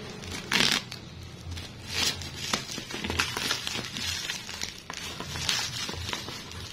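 Plastic mailer bag and bubble wrap crinkling and rustling as a package is pulled open by hand and a box is worked out of it, in irregular crackles, the loudest about half a second in and again about two seconds in.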